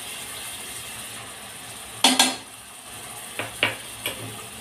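Ginger-garlic paste frying in hot oil in a kadhai with a steady sizzle, and a metal spoon knocking against the pan: two loud clanks about two seconds in, then a few lighter taps near the end.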